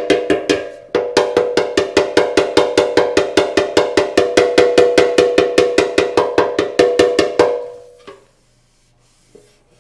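Rapid, evenly spaced light hammer taps on a Honda CL90's sheet-steel gas tank, about six a second, the tank ringing at each tap while a small dent is worked out during paintless dent repair. The taps pause briefly about a second in and stop about seven and a half seconds in, with one last tap after.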